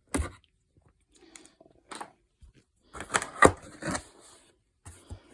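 Box and packaging being handled as the set is taken out. There is a sharp knock right at the start, then scattered small clicks and rustles, and a cluster of louder knocks and scrapes about three seconds in.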